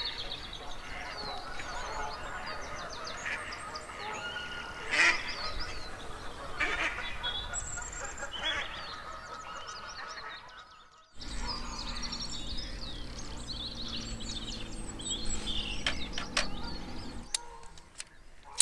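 Many birds calling and chirping together in a dense morning chorus, with one louder call about five seconds in. The sound drops out briefly about eleven seconds in, then the chorus resumes.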